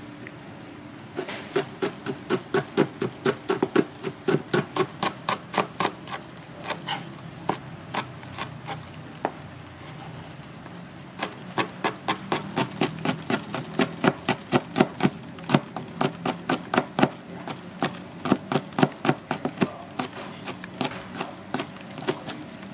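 A steady run of hard, sharp strikes, about three a second. The strikes stop for a second or two near the middle, then go on at the same pace.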